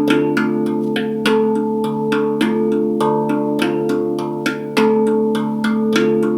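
Handpan played with quick repeated hand strikes, its steel notes ringing on and overlapping in a steady rhythm, with a louder accented stroke about once a second.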